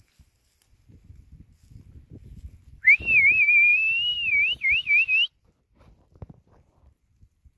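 A person whistling one wavering call of about two seconds, starting about three seconds in, with a few quick dips in pitch near its end. Faint low rustling and footfalls in grass come before and after it.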